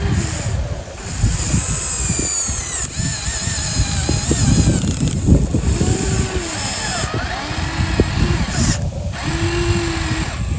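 Radio-controlled model excavator working: a high-pitched electric motor whine that slides up and down in pitch as the machine moves, over a rough, uneven low rumble with scattered knocks. The whine breaks off briefly about nine seconds in.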